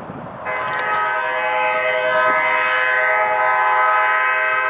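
Locomotive air horn sounding one long, steady multi-note blast that starts about half a second in.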